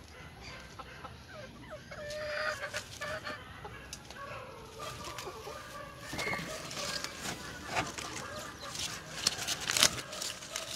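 Chickens clucking off and on. From about halfway through, leaves rustle and brush against the phone in a run of short crackles as a hand pushes in among the bitter gourd vines.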